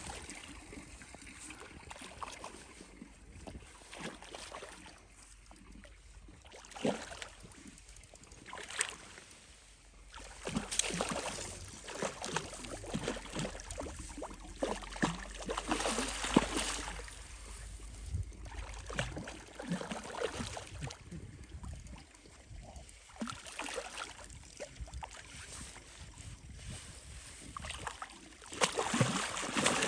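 Water lapping and splashing, with scattered knocks and clicks from handling, busiest in the middle and again near the end.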